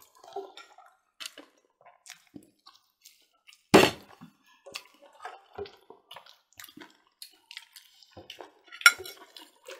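A partly filled plastic bottle landing hard on a table in a bottle-flip attempt, with a loud thump about four seconds in and another near the end, the liquid sloshing inside. Light clicks of forks on plates in between.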